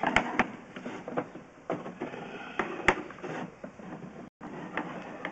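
Irregular knocks and clatter as a drain inspection camera's push rod is pulled back out through a stormwater pipe, with a few sharp knocks near the start and one louder one about three seconds in.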